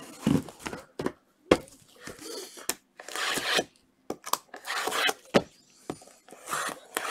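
Sealed trading-card boxes being shuffled and restacked by a gloved hand: the boxes' plastic wrapping rustles and scrapes in short bursts, with several sharp knocks as boxes are set down against each other.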